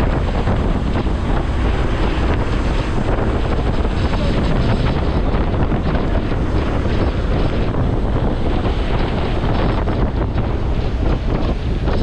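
Strong wind buffeting the microphone on the open deck of a moving tour boat: a loud, steady rumble with the rush of the boat through the water beneath it.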